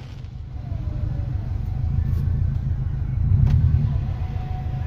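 Low, steady rumble of a 2003 Subaru WRX's engine and road noise heard inside the cabin while driving, swelling a little about three seconds in.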